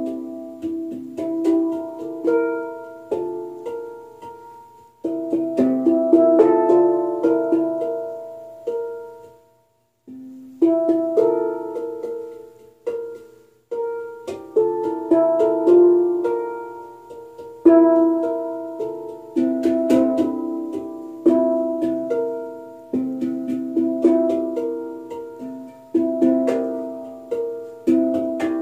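Two steel handpans played by hand in a fast rhythmic groove, each struck note ringing and fading. The playing pauses into silence about nine seconds in and picks up again about a second and a half later.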